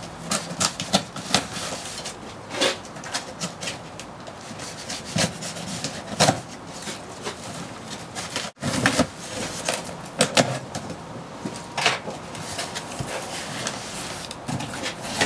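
Cardboard box being opened by hand: a box cutter slicing and scraping along the packing tape, with tape tearing and cardboard flaps rubbing and rustling as irregular short scrapes and clicks.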